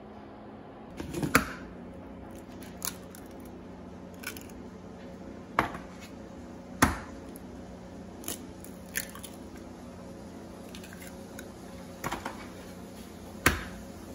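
Raw eggs being cracked one after another into a bowl of grated Parmesan: sharp taps and shell cracks, about nine in all and spread unevenly, over a steady low hum.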